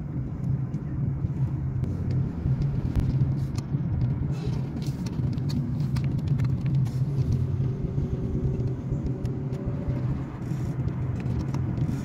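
Car driving along a paved road, heard from inside the cabin: a steady low engine hum and tyre noise, with a few faint ticks.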